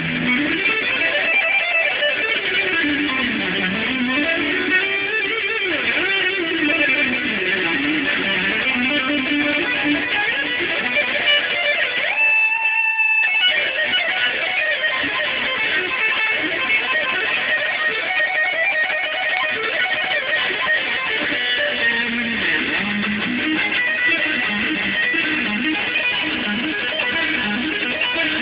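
Electric guitar being played, with notes sliding up and down the neck over the first ten seconds. About twelve seconds in, a single note rings on its own for about a second before the playing resumes.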